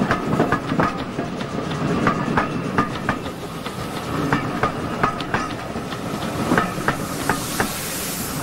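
Wooden-bodied passenger coaches rumbling past close by, their wheels clicking and clattering in quick uneven beats over the rails. A hiss of steam rises near the end as the last coach goes by.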